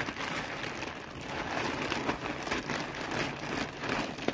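Plastic mailer bag crinkling and rustling as it is handled and opened: a dense, irregular run of crackles, with a sharper crackle near the end.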